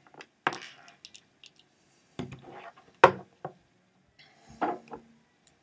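Clicks and knocks of 9-volt batteries being snapped together terminal to terminal, about four sharp separate clicks with the loudest about three seconds in.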